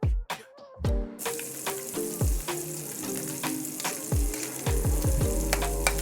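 Food frying and sizzling in a hot pan, starting abruptly about a second in, over background music with a steady beat.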